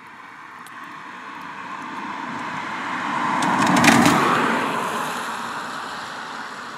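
A car passing close by on a wet road: the hiss of its tyres through the water swells to a peak with a crackle of spray about four seconds in, then fades as it drives away.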